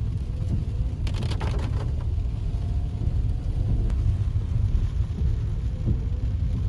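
Steady low rumble of a car being driven, with no other clear event over it.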